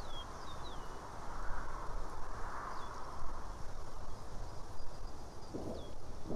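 Outdoor nest-camera ambience: a few short, thin chirps sliding downward in pitch from a small bird, over a steady rustle and a low wind rumble on the microphone. A low rumble sets in near the end.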